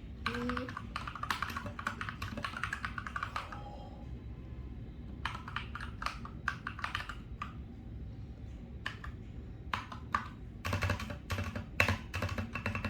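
Typing on an Akko 3068 Silent mechanical keyboard: rapid runs of keystroke clacks in three spells with short pauses between them, the strokes loudest near the end.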